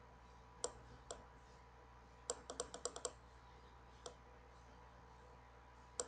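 Computer mouse button clicking: two single clicks, then a quick run of about seven clicks a couple of seconds in, then two more single clicks, over a faint steady electrical hum.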